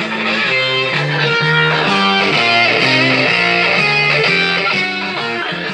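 Guitar music played loud through a Cygnus PA 400 power amplifier into a speaker cabinet, as a test of the amplifier after repair.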